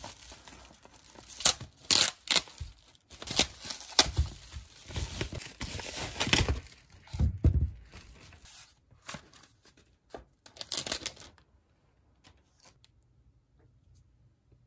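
Foil-lined insulated wrapping crinkling and tearing in irregular bursts as it is ripped open and pulled off a gelato tub. After about eleven seconds it stops, leaving only faint small clicks.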